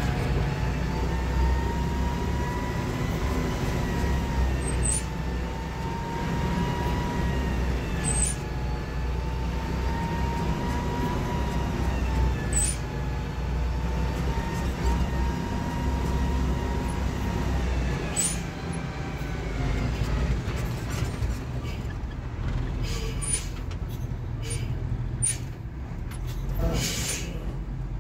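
Mercedes-Benz MB-trac 1300's six-cylinder turbo diesel running under way, heard from inside the cab: a steady low rumble with a high whine that wavers in pitch. The whine fades about two-thirds through, and sharp clicks come more often near the end.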